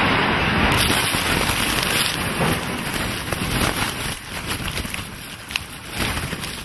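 Dust cloud from a building demolition rolling over the microphone: a dense rushing noise with scattered small clicks, slowly fading over the last couple of seconds.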